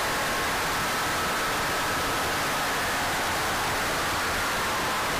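Inside the cabin of a 1984 Porsche 911 track car at speed: its air-cooled flat-six and the road and wind noise blend into a loud, steady rushing hiss. A faint whine sits within it and dips slightly in pitch near the end.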